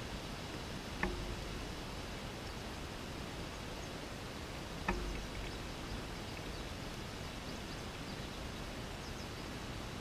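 Steady outdoor background noise, with two short knocks close to the microphone, one about a second in and one about four seconds later.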